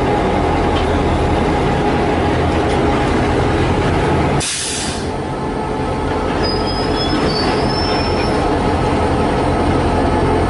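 GE-built CC202 diesel-electric locomotive running under power as it passes, hauling tank wagons: a steady low engine drone over the rumble of wheels on rail. A brief hiss about four seconds in, then a thin, high wheel squeal lasting about two seconds.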